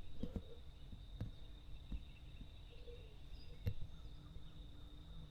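Quiet outdoor ambience: a low rumble, a faint steady high tone, and a few scattered soft clicks, the strongest a little over halfway through.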